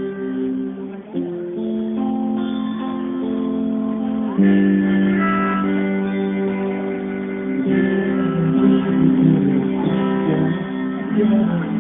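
Live band music with guitar, playing held chords that change every few seconds and get louder about four seconds in. The recording sounds dull, with no high end.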